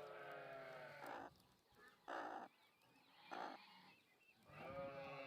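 Animal calls: a long wavering pitched cry at the start and another near the end, with three short raspy bursts about a second apart between them.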